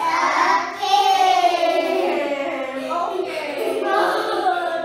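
A group of young children singing together, their voices held and gliding with no break.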